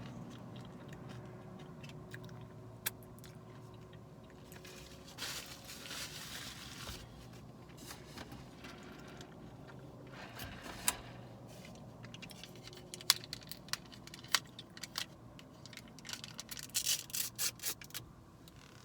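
Quiet eating of a fast-food chicken sandwich and fries: chewing, with rustling of food packaging and a few sharp small clicks. A quick run of rustles comes near the end.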